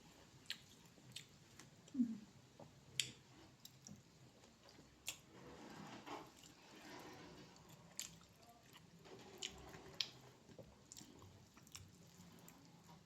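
Close-miked person chewing and eating curry with rice: soft wet mouth sounds with sharp smacking clicks about once a second.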